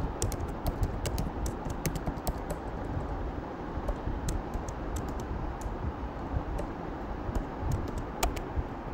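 Typing on a computer keyboard: irregular, quick keystroke clicks as a line of code is entered.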